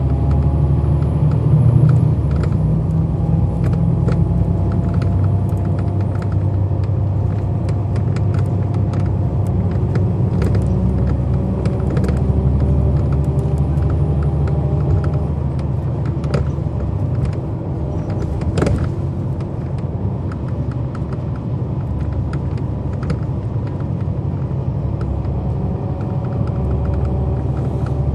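A 2011 NABI 40-SFW transit bus running under way: its Cummins ISL9 diesel and ZF Ecolife six-speed automatic transmission are heard pulling, the engine note climbing several times as the bus accelerates. Frequent small rattles and clicks come from the bus body, with one sharp knock a little past halfway, after which the bus eases off for a while before pulling again.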